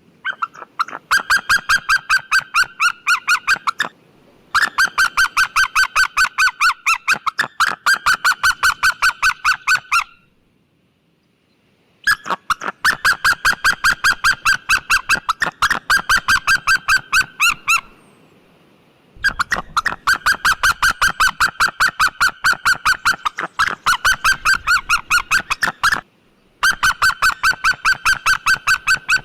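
White-tailed eagle calling: long runs of rapid, evenly repeated high notes, several a second, in about five bouts broken by short pauses.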